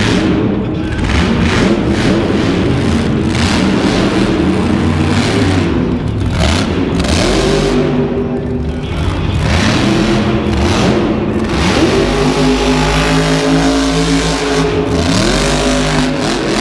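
Monster truck's supercharged V8 revving hard again and again, its pitch climbing and dropping with each burst of throttle, with a steadier low rumble for a few seconds past the middle.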